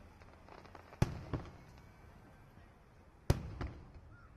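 Aerial firework shells bursting: two loud bangs about two seconds apart, each followed about a third of a second later by a smaller bang and a fading echo.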